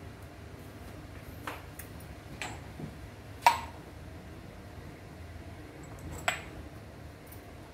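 Glass cupping jars clinking as they are handled and set onto the skin during fire cupping: a few sharp glass clicks with a short ring, the loudest about halfway through.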